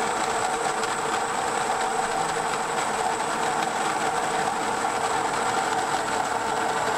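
Mueller Ultra-Grind conical burr grinder running, grinding coffee beans on a fine espresso setting straight into a portafilter. It makes a steady grinding whir with a high whine on top and cuts off abruptly at the very end.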